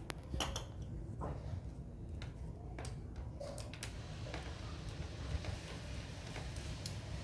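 Light, scattered clicks and taps of small hard parts being handled, as in assembling a homemade PCP air rifle. There are about ten, irregularly spaced, over a low steady hum.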